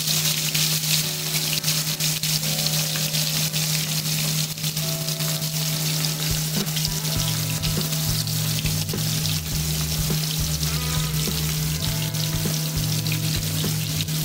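Whole snapper deep-frying in hot oil in a wok: a steady, dense sizzling and crackling, over background music with low held notes.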